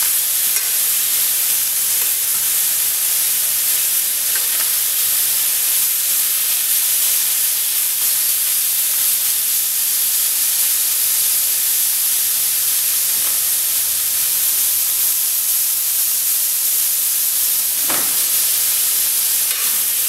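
Sliced soy-marinated chicken sizzling in a very hot frying pan as it is stirred and turned, a steady hiss from the marinade's water boiling off on high heat. One brief knock near the end.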